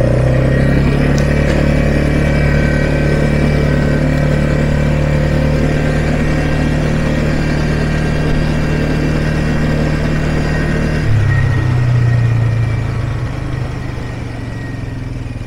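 ATV engine running steadily while riding. About eleven seconds in its note drops and briefly surges, then it quietens toward the end as the rider eases off.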